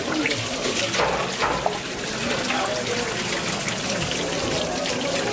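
Water from a sink tap running and splashing over a large fish as it is rinsed by hand in a steel sink.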